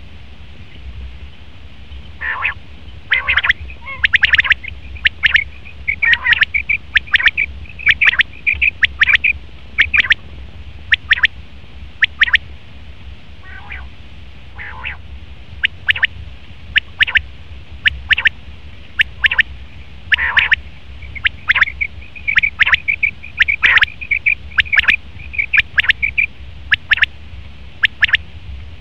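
Male common quail calling: sharp, high calls repeated about once a second, with stretches of rapid chattering notes between them.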